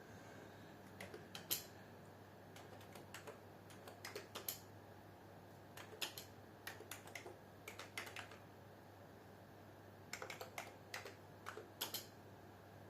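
Typing on a computer keyboard: faint, irregular runs of key clicks with short pauses between them, over a low steady hum.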